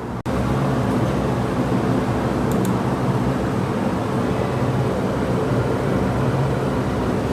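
Steady low hum with an even hiss, starting abruptly after a brief dropout about a quarter second in.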